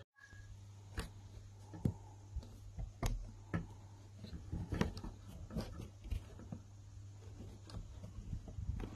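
Scattered light clicks and knocks, about a dozen, irregularly spaced, over a steady low hum.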